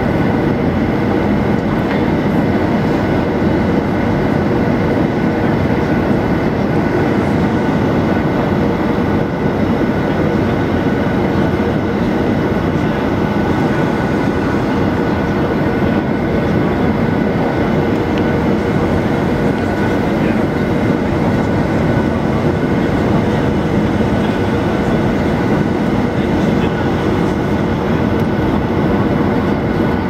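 Steady cabin noise inside a jet airliner on approach to land: the engines' hum and rushing airflow, with a few faint steady tones over it.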